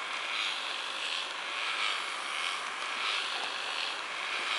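Small electric motors and linkages driving the animated blacksmith and bellows figures of a model blacksmith shop, a faint steady whir with a soft pulse a little faster than once a second.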